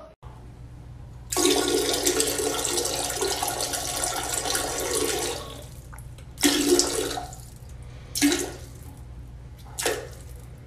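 Toilet flushing: a rush of water starts about a second in, runs steadily for about four seconds, then fades. A few shorter bursts of rushing noise follow.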